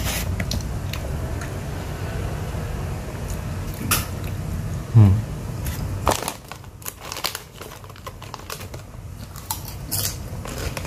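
Close-up eating sounds: chewing fried rice, with a spoon clicking and scraping against a foam takeaway box, and a short falling 'mm' from the eater about five seconds in. A steady low hum underneath stops about six seconds in.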